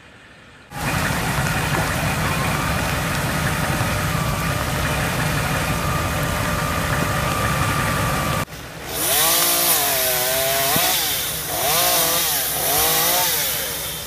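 Gas chainsaw running steadily at high speed for several seconds, then, after an abrupt change, revving up and down in about three swells as it cuts through tree limbs.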